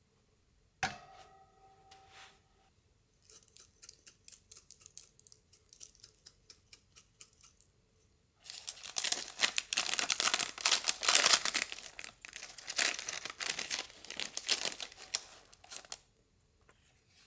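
A sharp metal clank with a short ring about a second in, likely the baking tray being set down. Then quick, soft dabbing strokes of a pastry brush over the bread, about three a second, and from about eight seconds soft baked bread rolls being torn apart by hand: a loud, dense crackling and tearing that lasts most of the rest.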